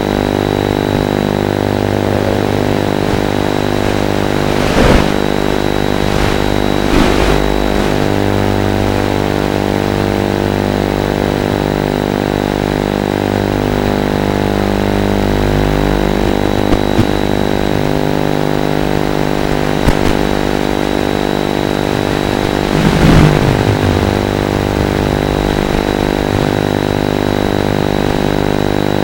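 Small FPV quadcopter in flight: a steady buzzing whine made of several tones that shift up and down in steps, with a few brief swooping surges.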